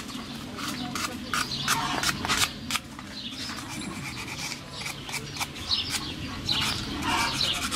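Small parts of an ATV carburetor being handled and fitted together: a string of light clicks and scraping.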